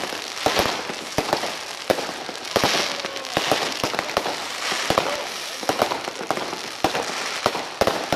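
Fireworks display: a rapid, irregular run of bangs from aerial shells bursting, a few a second, with stretches of crackling hiss from the star effects between them.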